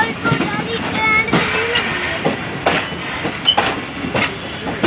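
Passenger train coaches rolling past close by, their wheels clacking over the rail joints in repeated knocks, with several brief high-pitched squeals from the wheels.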